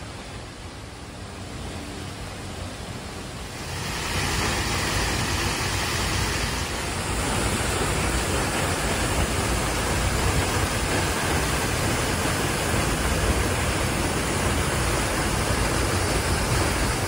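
Waterfall's rushing water: a steady, even rush of noise that grows louder about four seconds in.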